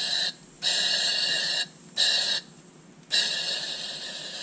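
Dual-voltage powder coating gun spraying powder: a steady hiss of air and powder that stops for a moment three times and starts again, as the gun is shut off and triggered again.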